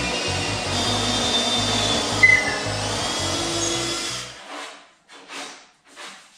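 A power tool, likely a drill, runs steadily and cuts off suddenly about four seconds in. It is followed by a few short scraping sounds.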